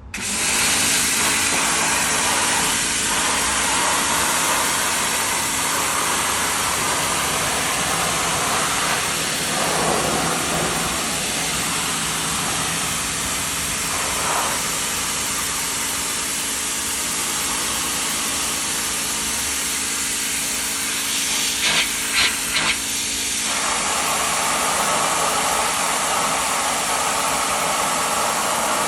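Pressure washer spraying: a steady hiss of the water jet over the hum of the pump motor, with three short louder spurts about two thirds of the way through.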